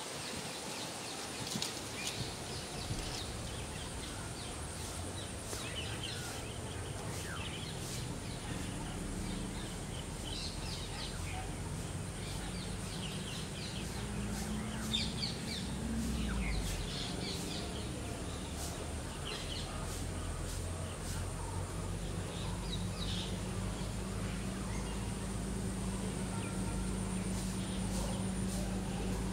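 Outdoor ambience at a pond: birds chirping on and off throughout, over a steady background hiss, with a low steady drone coming in a few seconds in and growing louder in the last third.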